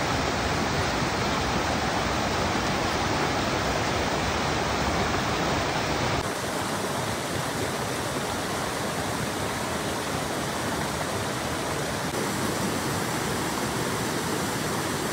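Steady rush of a rocky mountain stream, white water pouring over boulders and down cascades. Its tone changes abruptly about six seconds in and again near twelve seconds, where the shots change.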